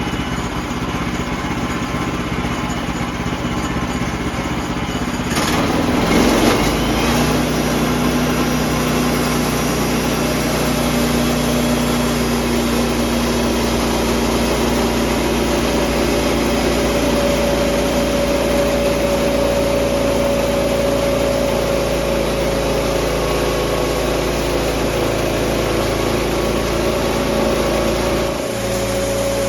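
Engine-driven sawmill running steadily, its sound shifting about six seconds in and dipping briefly near the end, as it works the log into a cant.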